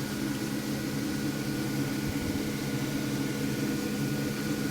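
Steady mechanical hum with a faint high whine held on one pitch, unchanging throughout.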